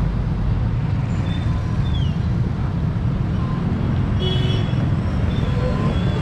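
Steady low rumble of road traffic, cars and motorcycles, with a few short faint high squeaks and a brief high-pitched tone a little over four seconds in.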